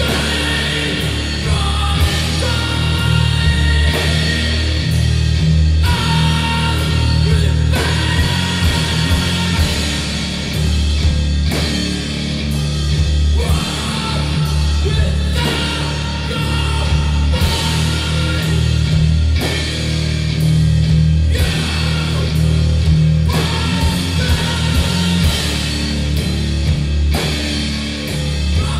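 Live doom metal band playing: heavily distorted, sustained low guitar and bass chords under a slow beat, with a drum hit and cymbal crash about every two seconds.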